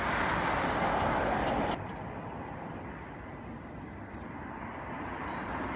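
A car passing on the road, a steady rush of tyres and engine that cuts off sharply about two seconds in. Then a quieter open-air hush with a few faint high chirps.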